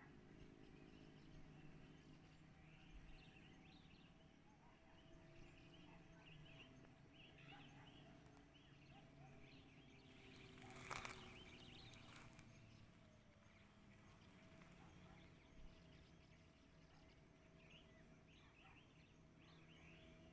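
Faint outdoor ambience with scattered faint chirps and a low steady hum, broken by a single sharp click about halfway through.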